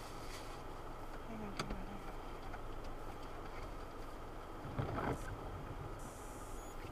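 Steady car road and engine noise heard from inside the car. There is a sharp click about a second and a half in, and a short knock about five seconds in.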